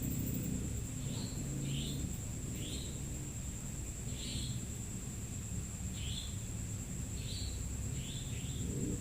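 Night-time outdoor ambience: a continuous high-pitched insect trill, with short chirps repeating about once a second over a steady low rumble.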